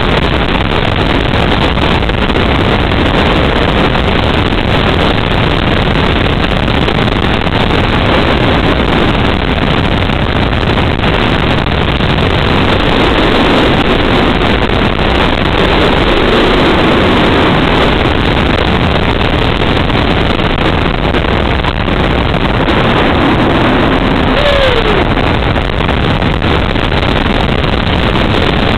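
Steel floorless roller coaster on the ride: a loud, steady rush of wind over the microphone mixed with the rumble of the train's wheels on the track. A short falling tone sounds near the end.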